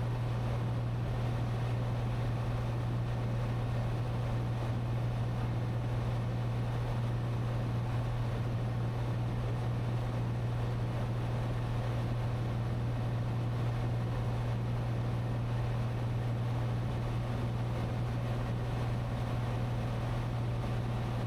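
Cessna 182T's six-cylinder Lycoming engine and propeller in steady cruise, heard as a constant low drone over a rushing haze of airflow noise in the cabin.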